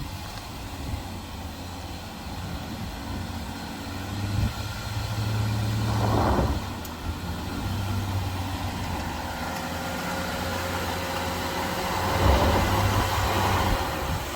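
Jeep Gladiator engine running at low speed off-road, a steady low drone that swells louder twice, about six and about twelve seconds in.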